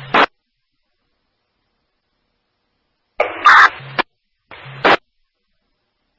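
Police radio scanner between transmissions: a short squelch burst at the start, then dead silence as the scanner cuts out. About three seconds in a loud burst of static and garbled transmission, then a shorter one about a second later.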